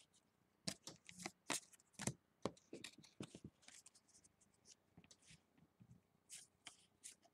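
Faint rustling and clicking of trading cards being handled and flipped through, a scatter of short ticks in the first few seconds and a few more near the end.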